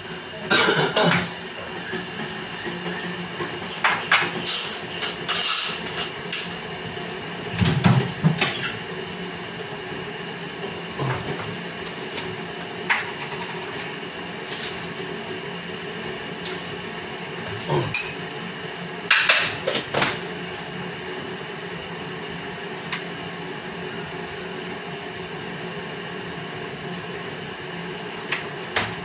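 Kitchenware being handled: scattered knocks and clinks of pots, dishes and utensils, clustered in the first several seconds and again around two-thirds of the way through, over a steady background hum.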